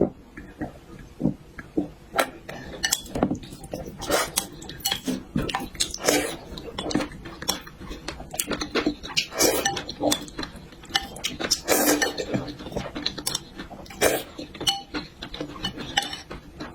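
Close-miked eating: metal cutlery repeatedly clinking and scraping against dishes, mixed with chewing and slurping, in irregular sharp clicks throughout.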